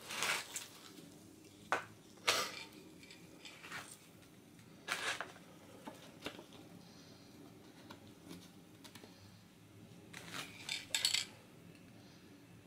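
Paper and card being handled against a wet spray-painted surface: short rustling and scraping bursts, about half a dozen, with a quick cluster near the end.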